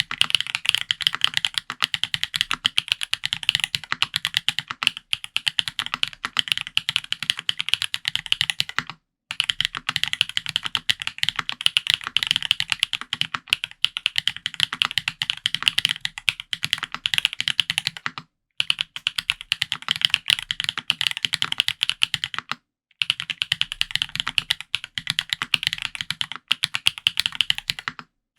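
IRON165 r2 custom mechanical keyboard being typed on fast and continuously: lubed Yok Holy Panda tactile switches under GMK keycaps on a copper plate. The typing stops briefly three times, about nine, eighteen and twenty-three seconds in.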